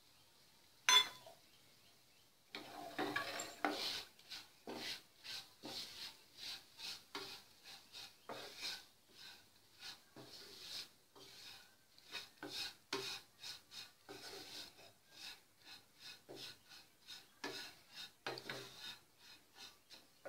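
Wooden spatula stirring and scraping dry flattened rice (aval) flakes around a nonstick frying pan as they are lightly roasted in ghee, in quick, even strokes of roughly two to three a second. A sharp knock sounds about a second in.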